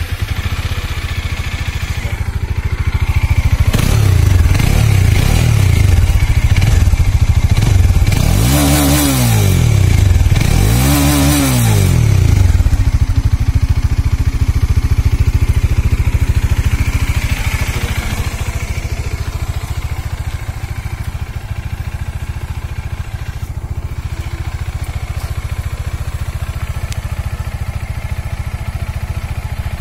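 Bajaj Dominar 400's single-cylinder engine, just started, running through an aftermarket Akrapovic slip-on muffler fitted to the stock pipe. It is blipped twice, rising and falling, about 9 and 11 seconds in, then settles to a steady idle.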